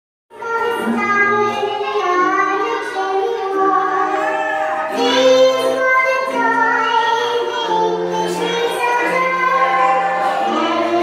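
A group of young children singing a Christmas song together over backing music with a steady bass line.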